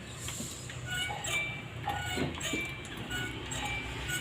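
Background music with short, high melodic notes over a low steady hum.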